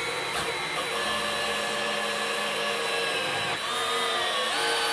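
Handheld electric drill running under load, a 4 to 4.5 mm bit boring a pilot hole through two layers of the lawnmower's sheet-steel deck and handle bracket. The motor whine is steady, and its pitch shifts about three and a half seconds in and again near the end.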